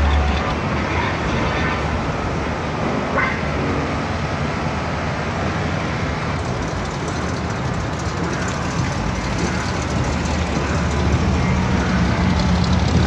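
Steady rumble of car engines running, mixed with general outdoor noise.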